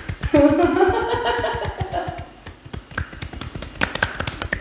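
Rapid, rhythmic slapping of hands on skin, massage tapping at many strokes a second. A drawn-out voice sound is held for about a second and a half near the start.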